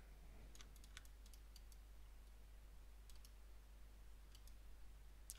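Near silence with scattered faint clicks from a computer mouse and keyboard being worked.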